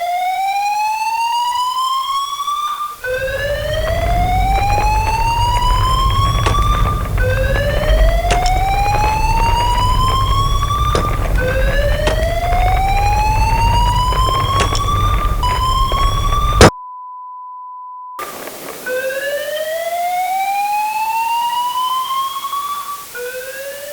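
A facility evacuation alarm sounding a repeating rising whoop, each sweep lasting about four seconds. A deep earthquake rumble builds under it about three seconds in. Near the end the whole sound cuts out suddenly, leaving a steady beep-like tone for about a second and a half, and then the whooping alarm starts again.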